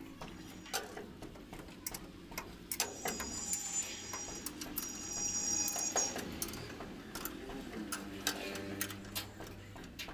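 Irregular metallic clicks and ticks from a long box spanner and its tommy bar working a nut on a truck's leaf spring mounting.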